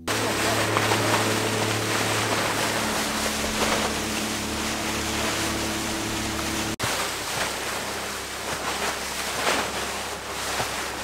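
A motorboat under way: a steady engine drone under a rush of wind and water. The sound breaks off for an instant about seven seconds in, after which the engine tone is fainter beneath the wind and water.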